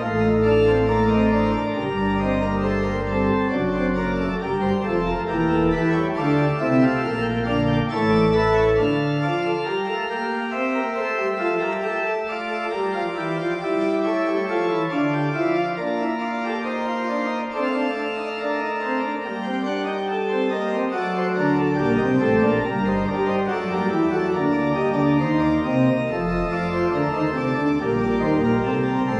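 Church organ playing a postlude at the close of Mass: sustained, changing chords over deep bass notes. The bass notes fall silent for about ten seconds in the middle, then come back.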